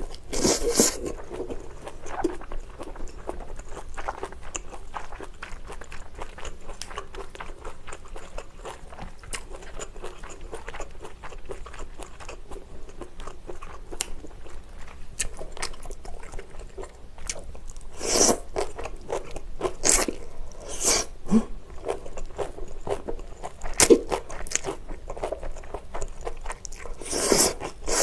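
Close-miked chewing of japchae made with thick, chewy Chinese glass noodles, full of small wet mouth clicks. A few louder slurps as noodles are drawn in, one near the start, several in the second half and one at the very end.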